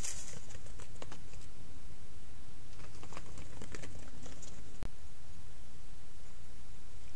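Steady low rumble and hiss of background noise, with scattered light clicks and ticks in two clusters, about a second in and again from about three to four and a half seconds in. Just under five seconds in, the sound briefly drops out.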